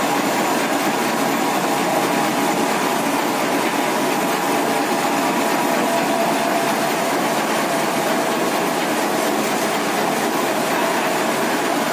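Corn sheller machine running with a steady, dense rattling clatter.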